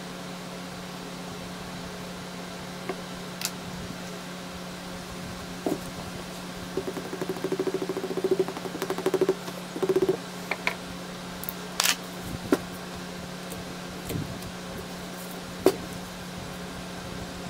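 Cast-iron hydraulic control valve body and hand tools being handled on a workbench: scattered knocks and clicks, with a stretch of rapid rattling about seven to ten seconds in, over a steady low hum.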